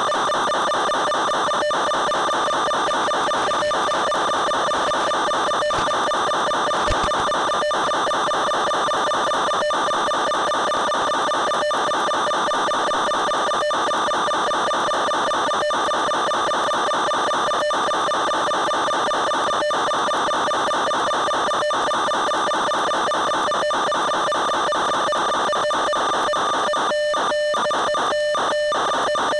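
Steady electronic buzz at one fixed pitch with its overtones, unchanging while the aircraft's throttle and speed change, as heard on the audio channel of an analogue FPV video link. Brief dropouts break it about every two seconds, coming in quick succession near the end, and there is a single click about seven seconds in.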